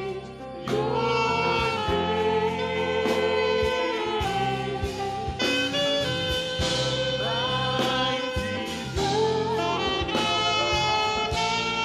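Gospel worship music: a saxophone plays a slow, sliding melody over sustained backing chords and a steady light percussion beat.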